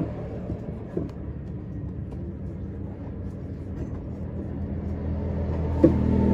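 A low, steady engine rumble, with a few sharp knocks of a large cleaver chopping through a fresh tuna onto a wooden block. The loudest knock comes near the end.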